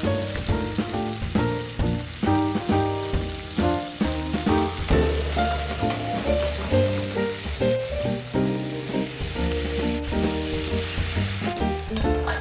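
Seafood and cherry tomatoes sizzling in oil in a metal frying pan over a gas flame, the pan tossed now and then. Background music with a steady bass line plays over it.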